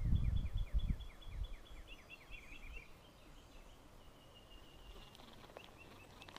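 A small bird sings a series of short, high, down-slurred notes that come faster and closer together over about three seconds. Low rumbling thumps sound under the first second or so, and a thin steady high note follows near the end.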